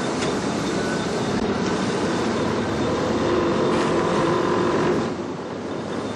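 Steady street traffic noise as a car moves slowly past, with a faint engine hum; it drops off briefly about five seconds in.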